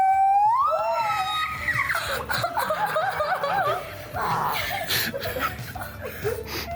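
A high-pitched squeal of delight, held and then gliding upward, followed by excited wavering cries and laughter.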